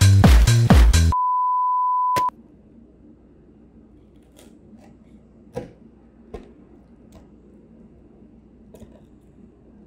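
Electronic dance music with a steady beat cuts off about a second in and gives way to a single steady high beep tone, like a TV test-tone bleep, held for about a second and ending in a sharp click. After that, a quiet room with a few faint scattered ticks and taps.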